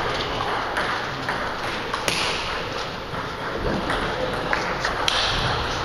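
Table tennis balls clicking sharply off bats and tables at irregular intervals, a few separate ticks over steady background noise.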